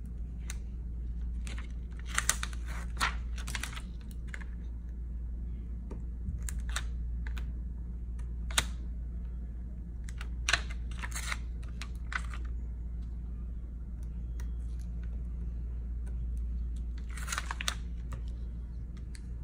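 Small irregular clicks, scratches and crackles, in a few clusters, as a weeding hook and fingernails pick and peel small pieces of cut iron-on vinyl off its carrier sheet on a light pad. A steady low hum runs underneath.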